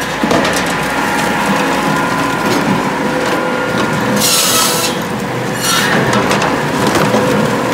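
Japa 700 firewood processor running off a tractor's PTO, a steady machine din with repeated wooden knocks as split firewood pieces tumble through. About four seconds in the circle saw cuts through a log, a brief high hiss over the din.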